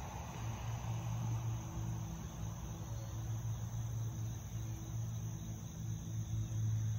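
Insects, crickets, chirping in a steady high-pitched chorus over a low steady rumble.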